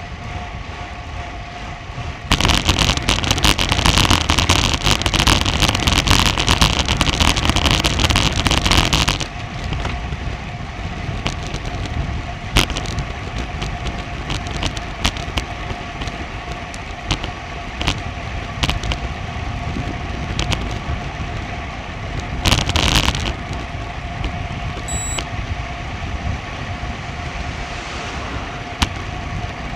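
Bicycle ride on a road heard through an action camera mounted on the bike: steady rushing road and wind noise with scattered sharp clicks and knocks. From about two to nine seconds in the rushing turns much louder and harsher, with a shorter loud patch near the end.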